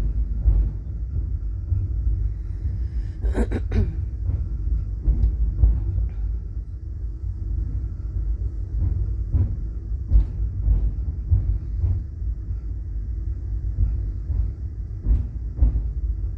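Passenger train rolling along, heard from inside the car: a steady low rumble with occasional short knocks and clunks.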